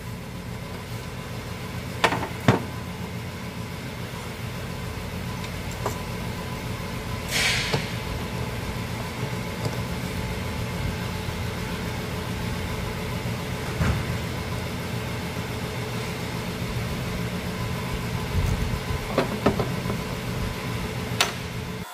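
Steady low hum of an idling engine, with a few scattered clicks and knocks of tools on metal and a short hiss about seven seconds in.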